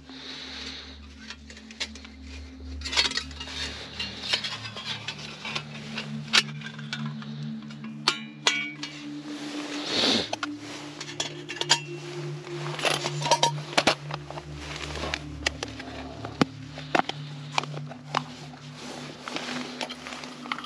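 Camp cookware and utensils being handled: irregular metal and glass clinks and knocks as cups, pots and tools are moved and set down, over a steady low hum.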